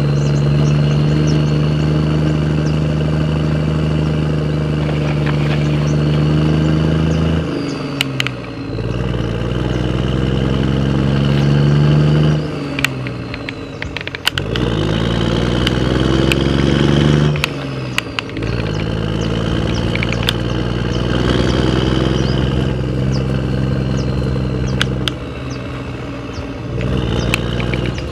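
Engine running steadily, its pitch dropping and climbing back three times, with scattered light clicks.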